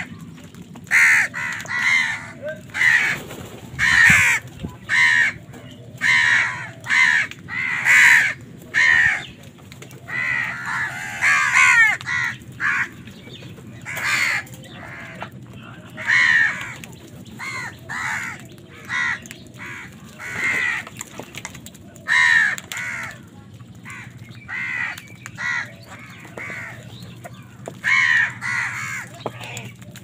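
A flock of house crows cawing while feeding: harsh, short caws from many birds, one after another, at times overlapping into a brief jumble about a third of the way in.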